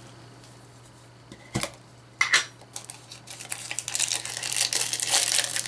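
Small metal-rimmed blind-box canister being twisted and prised open by hand: a couple of sharp clicks about two seconds in, then a busy run of small clinks and scrapes as the lid works loose.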